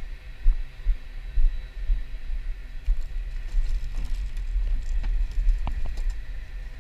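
Low, irregular thumping rumble on the microphone, with a few sharp clicks in the second half.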